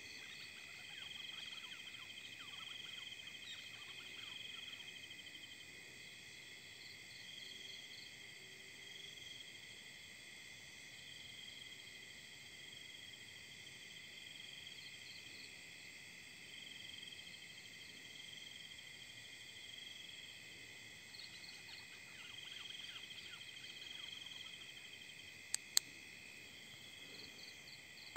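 Night chorus of crickets and other insects: steady shrill trilling in several layers, with pulsed trills that swell and fade. Two sharp clicks in quick succession near the end.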